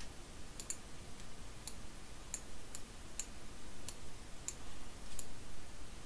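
Light clicks of a computer mouse, about ten at uneven intervals.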